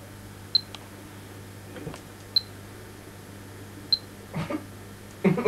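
Three short, high electronic beeps, about a second and a half apart, over a low steady hum. A voice starts right at the end.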